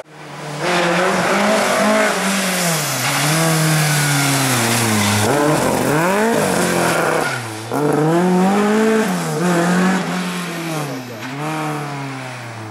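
Ford Escort Mk2 rally car's engine revving hard through a hairpin, its pitch climbing and dropping several times, with tyres squealing as the car slides sideways.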